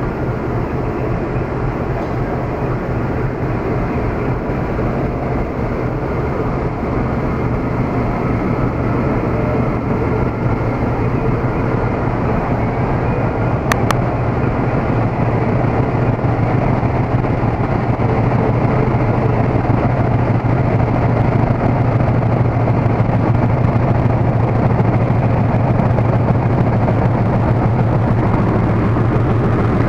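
Diesel locomotive engine running with a steady low drone, slowly growing louder as the locomotive pulling a cement freight train draws near.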